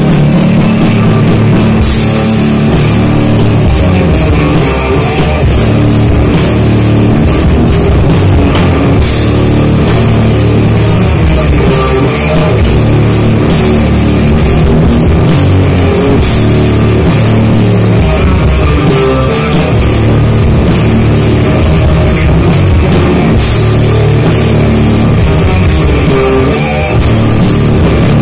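A metal band playing live and loud, with electric guitars over a drum kit driving a fast, even beat of cymbal and drum hits.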